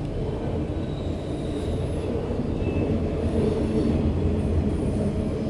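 Loaded autorack freight train rolling past with a steady rumble of steel wheels on rail, growing slightly louder partway through, with a few faint high wheel squeals.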